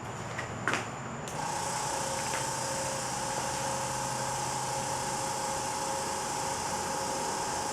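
TC-20 airbrush compressor switching on about a second in and then running steadily: a low hum with a steady higher tone and a hiss over it.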